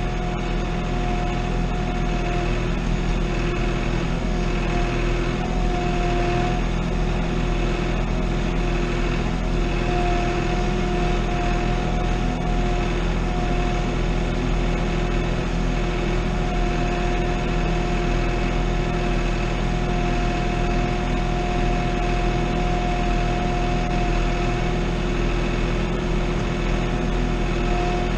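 Farm tractor engine running steadily at idle, with a steady whine on top.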